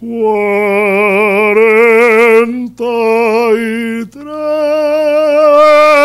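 A male operatic tenor singing in full voice through a handheld microphone: three long held notes with wide vibrato, with short breaks between them, the third note higher and still held at the end.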